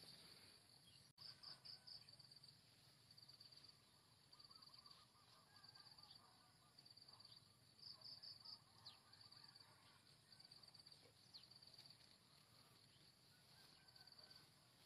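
Faint insects chirping in repeated short, high-pitched pulsed trills, with a few fainter, lower trilled chirps in the first half.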